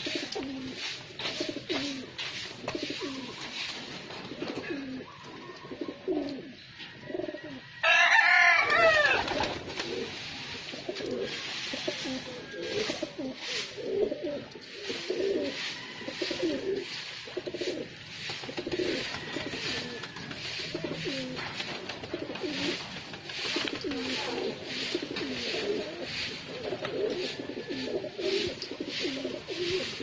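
Domestic pigeons cooing over and over, one low warbling coo after another. About eight seconds in, a single louder, higher-pitched call lasts over a second.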